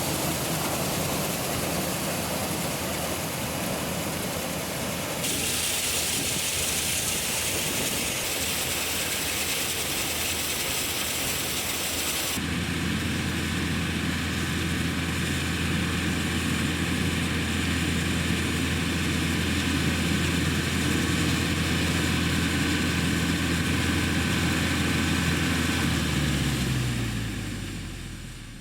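Tractor running a PTO-driven New Idea corn picker-sheller, with the machine's chains, gears and augers rattling. About halfway through, the sound changes abruptly to a steady low engine hum. Near the end the engine slows, its pitch falling as the sound fades.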